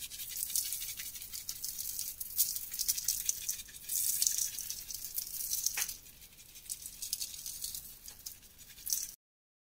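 Pink-dyed chalk grains shaken from a small container and pattering onto a dry chalk slab, making a dense, fine, rattling hiss with many tiny ticks. The sound cuts off suddenly about nine seconds in.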